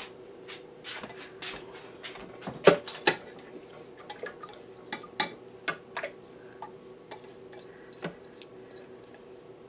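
Kitchenware clinking and tapping as a bowl of sugar water is emptied and scraped out into a Ninja blender jar: irregular light clinks and knocks, the loudest two close together about three seconds in, over a faint steady hum.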